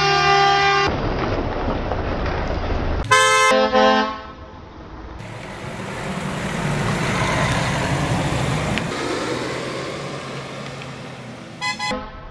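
Vehicle horns honking: a horn blast at the start, another horn about three seconds in, and two short toots near the end. In between, a passing vehicle's engine and tyre noise swells and fades.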